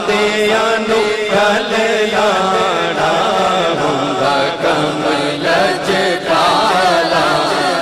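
A man's solo voice chanting a Punjabi naat, devotional verse in praise of the Prophet, through a microphone and PA, over a steady low drone.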